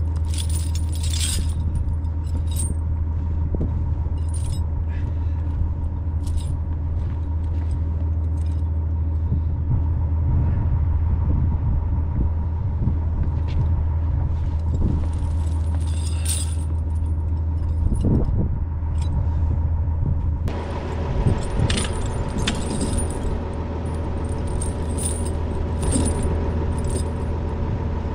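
Metal tire chains clinking and jangling as they are handled and fitted onto truck tires, over a vehicle engine idling steadily. About twenty seconds in, the background grows brighter and fuller.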